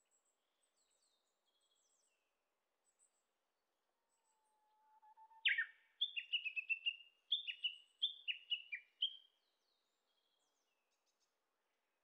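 Japanese bush warbler (Horornis diphone) singing: one long, low whistled note that rises slightly, then a run of quick, sharp whistled phrases that each slide downward, repeated for about three and a half seconds.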